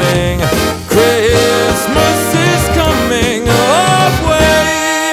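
Upbeat Christmas pop song playing, with a band, a steady beat and a sliding melody line. A held chord comes in near the end.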